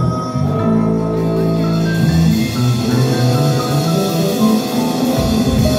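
Live band playing: electric guitar with a drum kit, amplified through the stage PA.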